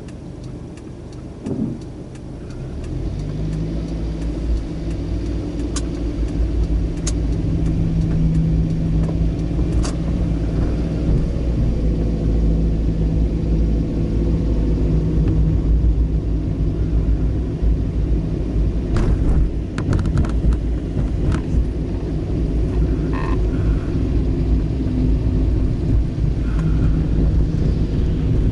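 Car engine and road rumble heard from inside the cabin, rising about two to three seconds in as the car pulls away from a stop and then running on steadily, with a few sharp clicks here and there.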